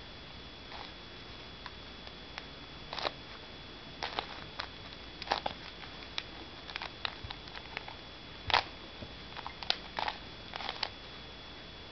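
Rubik's Cube being turned by hand during a solve: irregular clicks and clacks of the plastic layers rotating, some in quick bunches.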